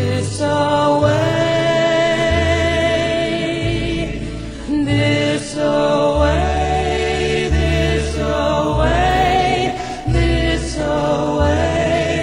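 Background music: a slow song with long, held, wavering sung notes over a deep bass line that changes note every second or so.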